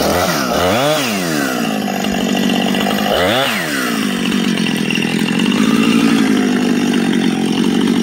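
Two-stroke chainsaw running at high revs, cutting through a log, its engine pitch dipping and recovering twice as the saw is worked.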